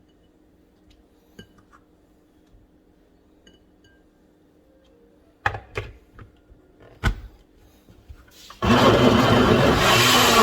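A few hard knocks, then about eight and a half seconds in an electric blender starts and runs loud, its motor pitch wavering as it purees tomatoes, cucumbers and green peppers into gazpacho.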